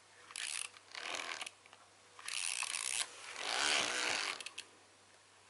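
Clockwork mechanism of a wind-up toy mouse making whirring, ratcheting clicks in four bursts of under a second each, the last and loudest about four seconds in.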